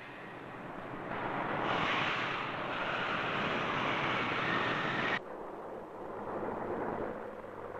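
Steady hissing din of machinery in a truck assembly plant, swelling over the first two seconds. About five seconds in it cuts off abruptly to a quieter street background hiss.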